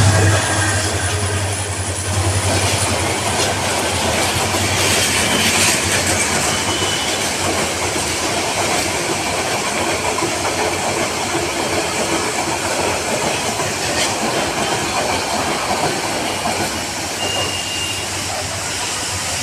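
Passenger train passing close by: the diesel locomotive's engine drone fades over the first couple of seconds, then the coaches' wheels clatter over the rail joints, with two brief high wheel squeals. The noise slowly fades as the train draws away.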